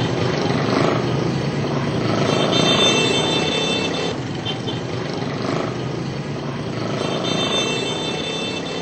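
Steady vehicle noise, with high-pitched tones coming in twice and then fading.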